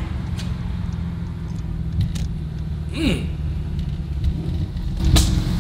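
Car engine and road rumble heard from inside the cabin while driving, low and steady. A short sharp click comes about five seconds in.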